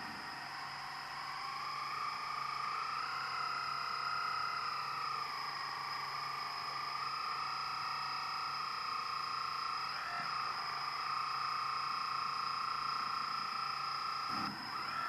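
Hydraulic pump of a Kabolite RC hydraulic model running with a steady electric whine, its pitch sagging and recovering slightly a few seconds in as the load changes.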